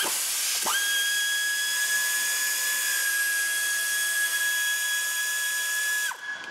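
Hand-held power tool spinning up to a steady high whine about a second in, running evenly for about five seconds, then winding down near the end while unscrewing the engine cover's bolts.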